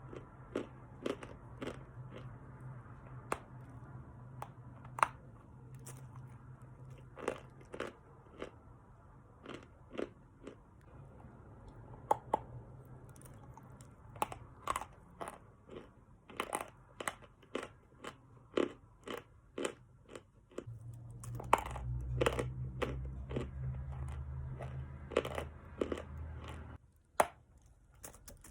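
Lumps of Khrapovsky chalk being bitten and chewed close to the microphone: a string of sharp, irregular crunches, one or two a second. Under them runs a low steady hum that grows louder about two-thirds of the way through and stops near the end.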